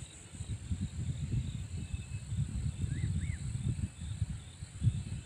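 Wind buffeting the microphone in gusts, over a steady high-pitched insect drone. Two short bird chirps sound about three seconds in.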